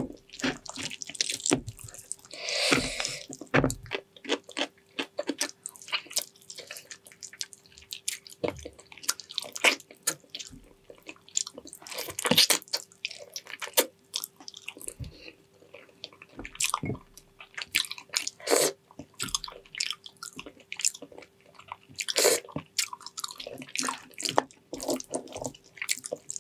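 Close-up wet chewing and lip-smacking while eating braised pig's trotters, in irregular sticky smacks and clicks. A faint steady hum runs underneath.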